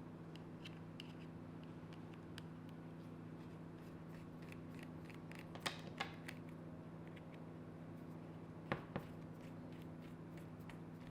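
Light clicks and taps of small objects being handled, with two louder pairs of sharp clicks about halfway and near the end, over a steady low hum.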